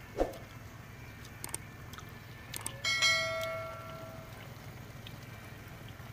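Subscribe-button sound effect: a couple of clicks, then a bell chime that rings out and fades over about a second, about halfway through. A dull thump comes just after the start.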